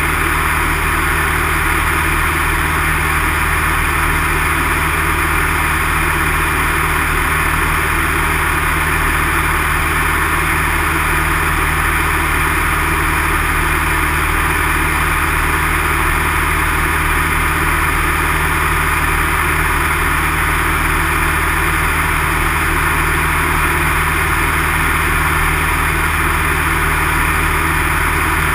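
Single-engine light aircraft's piston engine and propeller running steadily in flight, heard from inside the cockpit along with the rush of air.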